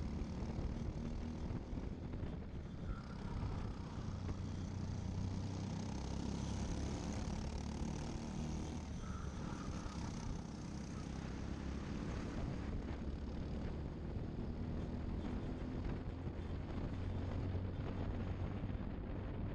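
Briggs & Stratton LO206 single-cylinder four-stroke kart engines running at racing speed, heard from a camera mounted on a kart, with the engines of other karts close by.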